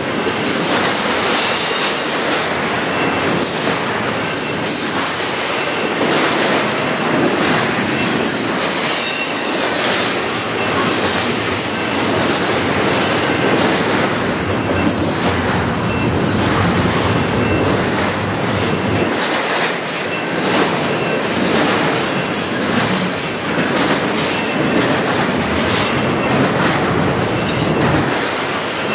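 Double-stack container well cars of a freight train passing: a steady, loud rolling rumble of steel wheels on rail, with thin high wheel squeal that comes and goes.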